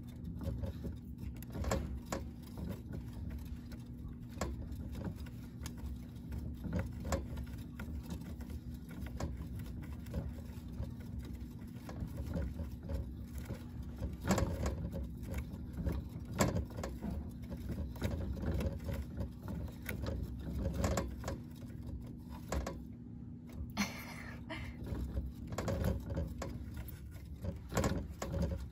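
Red plastic hamster wheel turning and rattling as a hamster runs on top of it. A steady low rumble with many small clicks and knocks from its feet and the wheel.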